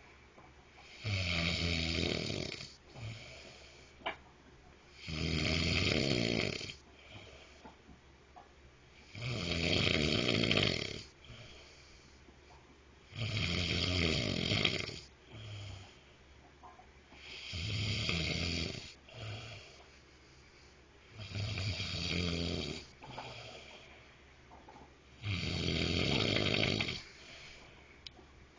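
A sleeping man snoring loudly, one long rasping snore about every four seconds, seven in all.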